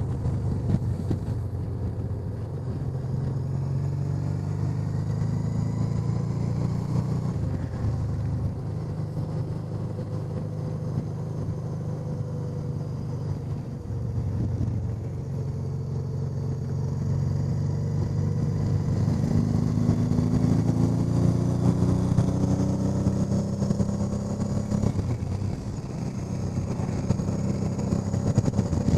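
Honda Deauville NT650V's V-twin engine running under way on the road, heard from the rider's helmet with steady wind noise over it. The engine note dips briefly a couple of times, then rises again past the middle.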